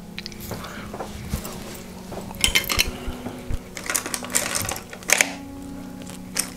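Small hard makeup items, brushes and little containers, clinking and rattling against each other as they are handled and picked through, in three short bursts of clicks.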